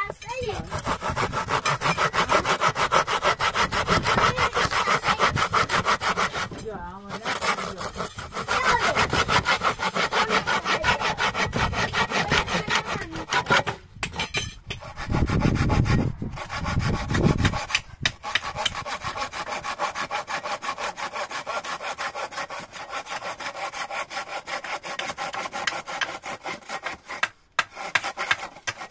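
Fast, even rasping strokes repeating many times a second, a sawing- or filing-like scrape. It breaks off briefly a few times, and a louder, deeper rush of noise comes in the middle.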